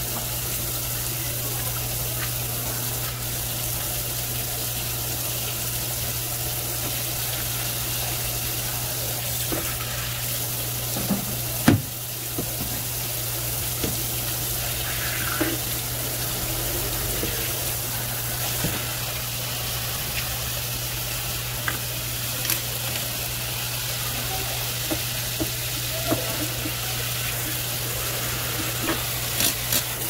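Steady hiss with a low hum underneath, broken by scattered sharp clicks and knocks, the loudest about twelve seconds in.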